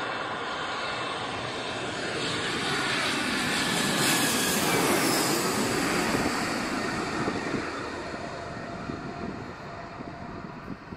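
Twin-engine jet airliner passing low overhead on final approach with its landing gear down. The engine noise swells to its loudest about four to five seconds in, with a whine that falls in pitch as it passes, then fades away.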